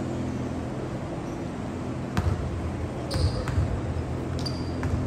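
A basketball bouncing on a hardwood gym floor, about five uneven thuds in the second half, with a couple of short sneaker squeaks, over a steady low hum in the hall.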